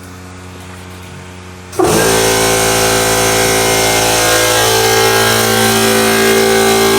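Electric air compressor kicking on suddenly about two seconds in and running steadily and loudly, a motor hum under a wide mechanical hiss.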